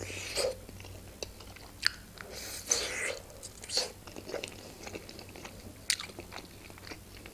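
A person biting into and chewing a khinkali dumpling, with soft mouth noises and scattered short smacks and clicks.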